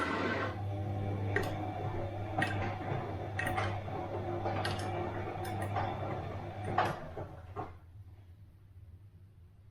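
Bosch front-loading washing machine running through its wash cycle: a steady low motor hum with a sharp click about once a second as the drum turns. About eight seconds in, the clicks stop and the sound drops to a faint hum.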